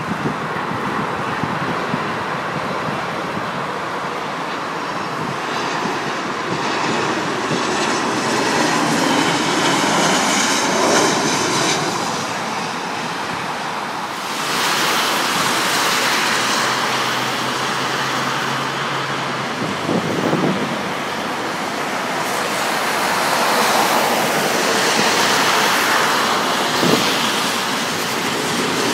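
Steady roadside traffic noise with vehicles passing in slow swells, mixed with wind on the microphone.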